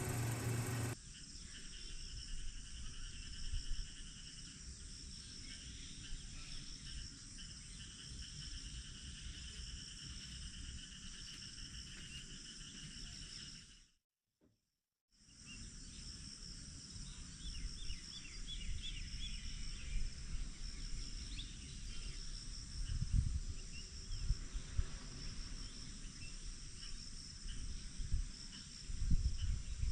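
Steady insect chorus, several high-pitched trills held together, over a low uneven rumble. Everything drops out for about a second halfway through.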